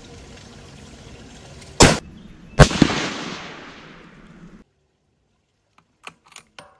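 Scoped rifle firing at a water-bottle target, heard as two loud cracks less than a second apart. The second crack trails off in a long echo, and the sound cuts off suddenly. A few faint clicks follow near the end.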